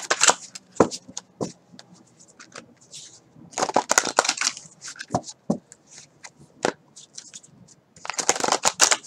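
A deck of oracle cards being shuffled by hand in three bursts of riffling and rustling, near the start, about four seconds in and near the end, with single card taps and snaps between.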